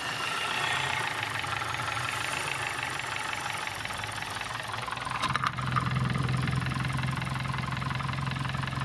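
2020-model Hyundai car engine idling steadily just after starting. A short click comes about five seconds in, after which the low hum grows louder.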